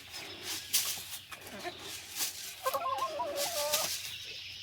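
Laying hens clucking, one giving a longer wavering call about three seconds in, over scattered short rustling noises.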